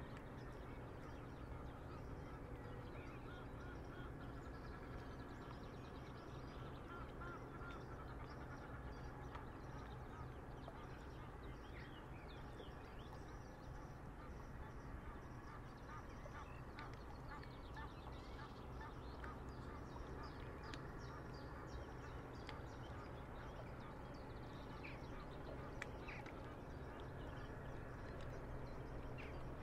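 Waterbirds, ducks and geese, calling now and then in short honks and quacks over the steady low wash and hum of a river at a breakwater.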